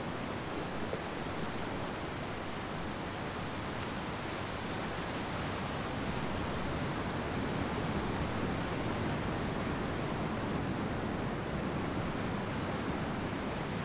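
Ocean surf washing onto a beach, a steady rushing hiss that swells slightly midway.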